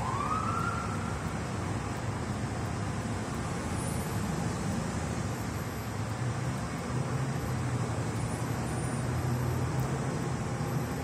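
Low, steady vehicle engine rumble with road traffic noise as the float creeps forward. A brief rising whoop-like tone sounds right at the start.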